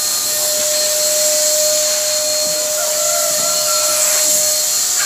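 A small electric motor running steadily: a constant whine over a rushing hiss of air.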